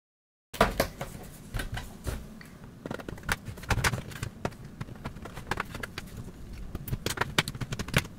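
Irregular clicks, knocks and rubbing of an HP Pavilion 14-CE laptop's case as its bottom cover is pried away from the body, starting abruptly about half a second in.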